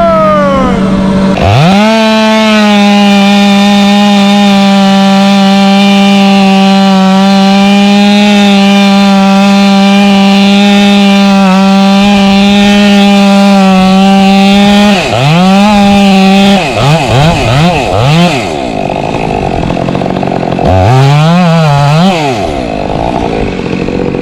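Chainsaw engine held at high revs for about thirteen seconds, then revved up and down repeatedly through the last several seconds.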